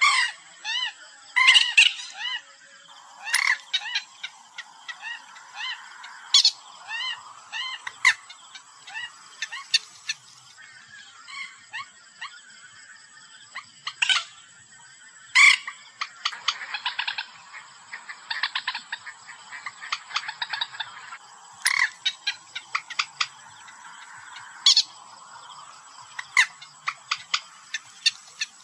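Common moorhen (mandar batu) calls played as a hunting lure recording: series of short rising-and-falling croaking notes, sharp loud single calls, and, from about halfway through, runs of fast ticking clucks.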